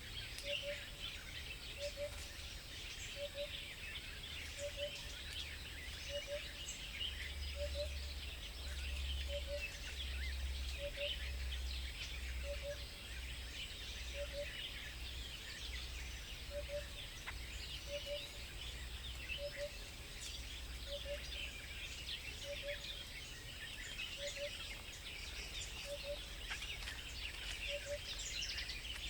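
Many small birds chirping and twittering, with a soft double note repeating roughly once a second, over a steady low rumble.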